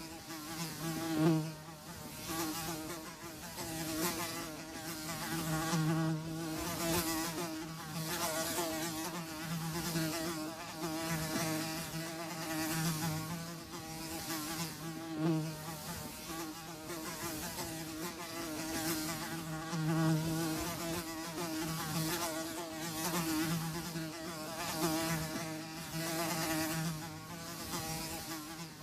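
Houseflies buzzing: a steady drone that swells and fades every second or two as the flies move nearer and farther, with brief louder passes about a second in and midway.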